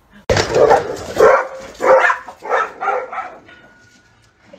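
A dog barking about five times, each bark roughly two-thirds of a second apart, the first one loudest.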